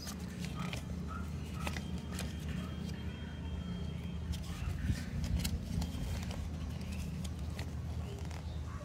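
Paper cards and glossy leaflets rustling and clicking as they are handled and fanned out, over a steady low hum.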